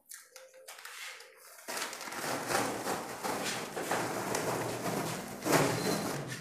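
Self-adhesive PVC wallpaper sheet being peeled off a distemper-painted wall, then handled loose. A crackling rustle starts after about a second and a half and goes on steadily.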